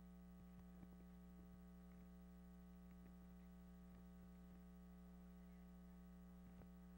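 Near silence with a steady electrical hum and a few faint ticks.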